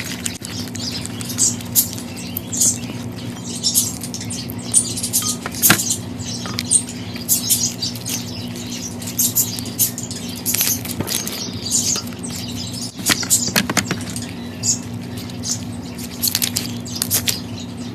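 Slime being squished and worked by hand, giving irregular wet clicks, crackles and small pops over a steady low hum.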